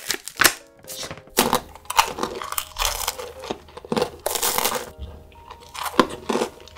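Ice cream cone wrapper being torn and peeled off with crackling and crinkling, followed by crunchy bites and chewing of the waffle cone. Light background music plays underneath.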